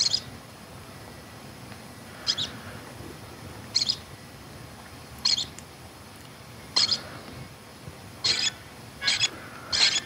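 Short high-pitched chirps over a steady hiss, about one every second and a half at first and coming faster toward the end.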